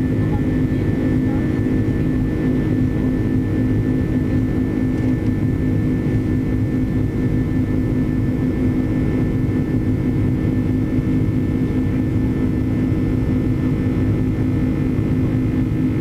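Steady drone of an airliner's turbofan engines and rushing air, heard inside the cabin while climbing after takeoff: a constant low rumble with a steady hum and faint higher whine.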